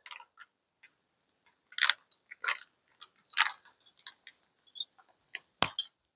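A few short scratchy strokes, with small handling noises between them, then two sharp clicks close together near the end.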